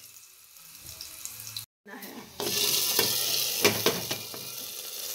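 Hot mustard-oil tempering with fried garlic poured into a pot of cooked greens, sizzling loudly as it hits: a sudden hiss about halfway through that carries on, with a few clinks of the metal pan.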